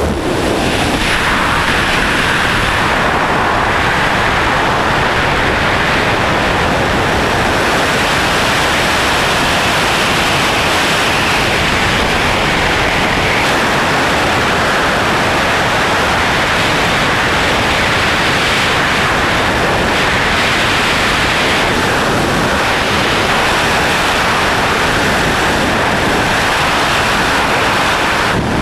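Loud, steady rush of wind across an action camera's microphone: the airflow of a wingsuit in freefall.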